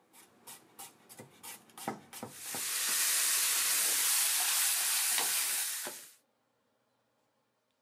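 A kitchen knife chopping garlic on a wooden cutting board, about seven knocks over two seconds. Then edamame sizzle steadily in a hot frying pan for about four seconds before the sound cuts off suddenly.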